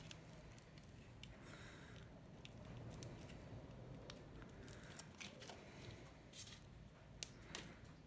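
Quiet handling sounds from thin garden sticks and a foil sculpture being worked by hand: scattered small clicks and faint crinkling, with two sharper clicks near the end.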